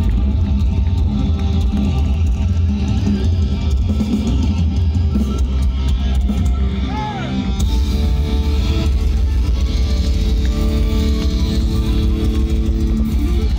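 Folk metal band playing live: distorted electric guitars, drum kit and violin, loud and bass-heavy as picked up by a phone in the crowd. About halfway through the band drops out for a moment, then comes back in with held melody lines over the drums.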